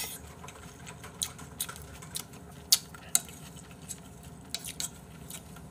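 Eating sounds: chewing, with scattered light clicks and taps of a spoon and chopsticks against the bowls, the two loudest clicks a little past halfway.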